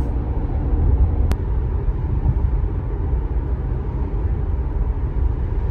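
Steady low road and tyre rumble inside the cabin of a Tesla Model Y electric car on the move, with no engine note. One short tick about a second in.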